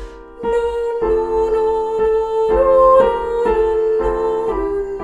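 Piano playing a slow, simple song melody over held chords, with a new note struck about twice a second.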